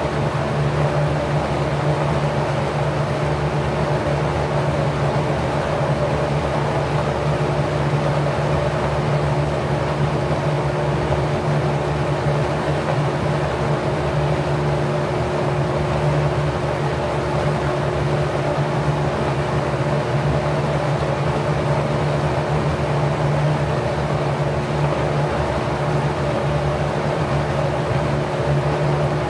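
Packard 99319 single-speed 1/5 hp electric motor spinning a 20-inch four-blade, 27° pitch propeller at about 1050 rpm: a steady hum over an even whoosh of moving air.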